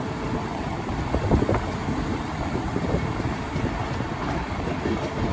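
Steady rush of a moving passenger train heard from an open coach window, with wind on the microphone.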